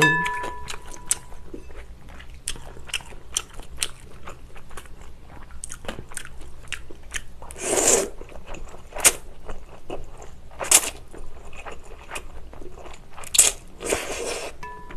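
Close-miked chewing of chewy jjolmyeon noodles and crunchy cucumber strips in a spicy broth, with a run of small wet clicks and crunches. Noodles are slurped up twice, about halfway through and again near the end.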